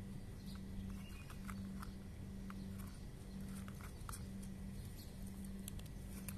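A cat chewing dry kibble: small, irregular crunches, several a second, over a steady low hum.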